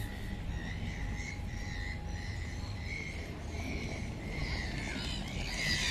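Bird calling in short repeated chirps about twice a second, with a burst of louder chattering calls near the end, over a steady low rumble.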